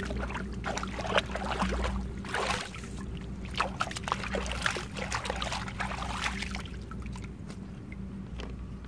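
Shallow muddy ditch water splashing and sloshing as a sandalled foot is rinsed in it and a hand scoops water over it, in quick irregular splashes.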